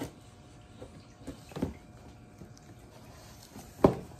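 Scissors cutting and pulling packing tape off a cardboard box: a few scattered scrapes and knocks, with a sharp knock near the end.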